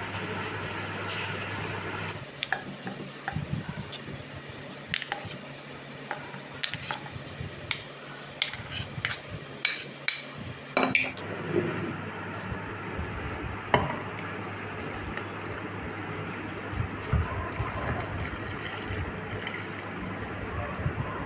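A spoon scraping and clinking against a ceramic bowl as chopped mango is tipped into a stainless-steel blender jar, with a series of sharp knocks. Near the end, milk is poured into the jar with a splashing, filling sound.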